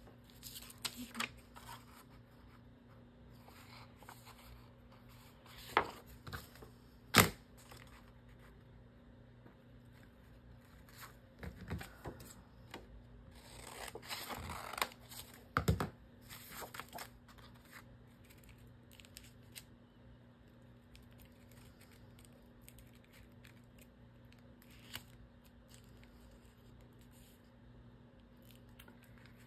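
Paper being handled, cut and torn by hand, with intermittent rustling and a few sharp knocks, the loudest about seven seconds in.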